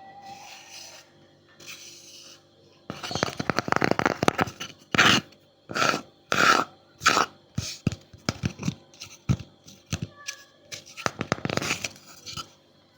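Scratching and rustling on a wooden object: a dense run of scraping from about three seconds in, then a series of separate short strokes about half a second apart, and two more short clusters of scratching later on.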